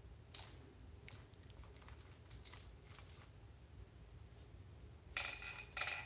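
Hard plastic tube toy tapped and dropped on a tile floor by an African grey parrot: scattered sharp clicks, each with a short ringing tone, then two louder clatters near the end.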